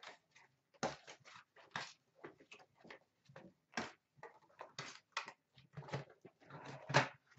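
Irregular clicks, crackles and rustles of card boxes and plastic-wrapped packs being handled and opened.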